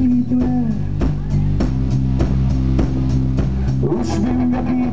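Live rock band playing an instrumental passage between sung lines: electric guitars holding low chords that change every second or so over bass guitar and a steady drum-kit beat.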